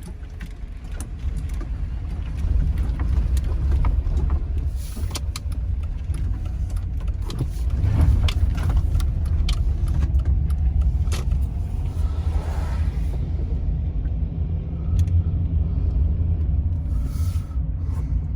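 A motor vehicle driving: a steady low engine and road rumble, with scattered light clicks and rattles.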